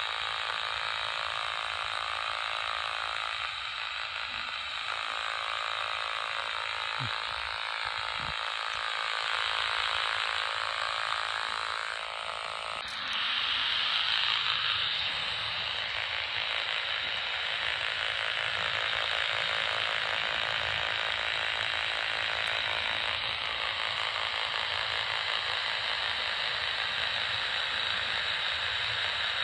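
Philips AE1500 pocket radio on AM, tuned between stations and held over a robotic lawnmower's boundary wire, giving a continuous rattling buzz from the wire's loop signal, the noise that shows the cable is still carrying signal at that spot. About 13 seconds in, the buzz changes and turns hissier.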